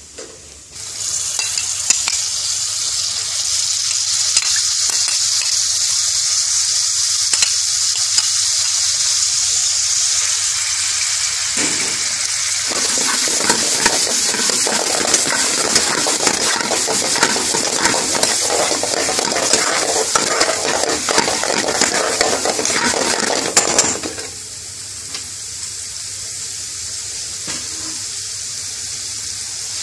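Chicken pieces sizzling in an onion and tomato masala in a metal pan, with a metal spoon stirring and scraping through them. The sizzle starts about a second in, grows fuller from about halfway through, and eases to a quieter sizzle for the last few seconds.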